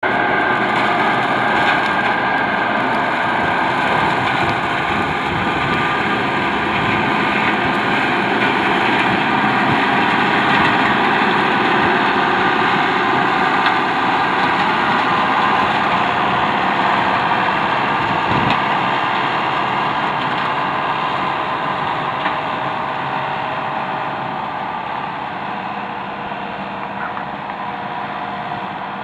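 Aebi TT270 slope mower's engine and its Alamo flail mower running steadily while cutting tall grass. The sound fades over the last several seconds as the machine moves away.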